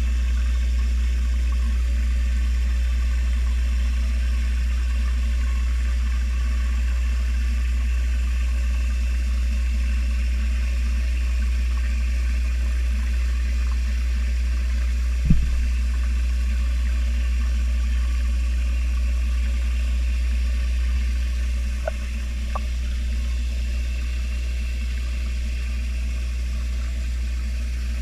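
Steady low machine hum heard underwater in a fish tank, with a single dull knock about halfway through and two faint ticks a little later, after which the hum drops slightly in level.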